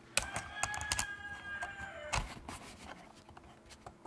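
Handling noise as a small audio recorder is screwed onto a camera shock mount: a few sharp clicks, then a squeak lasting about a second and a half that drops in pitch at its end, followed by a couple more clicks.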